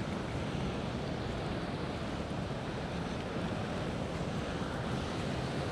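Steady ocean surf, with wind on the microphone.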